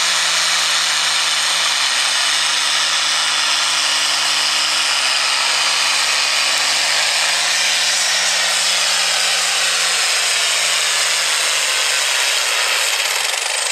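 John Deere farm stock tractor's diesel engine running at full throttle under heavy load while pulling a weight-transfer sled: a loud, harsh, steady engine noise. Near the end the engine note drops as the pull winds down.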